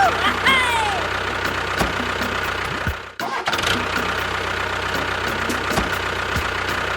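Small tractor-style engine running steadily with a rapid, even knock. It cuts out briefly about three seconds in, then picks up again.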